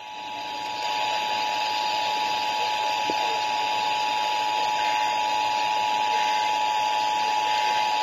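Emergency Alert System two-tone attention signal (853 and 960 Hz sounded together) coming through a Midland portable weather radio's small speaker as one steady, unbroken tone over radio hiss, swelling over the first second and then holding level. It is the alarm that opens a Required Monthly Test alert.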